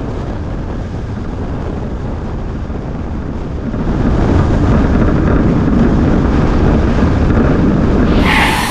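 A steady low rumbling noise that grows louder about four seconds in, with a brief brighter hiss near the end.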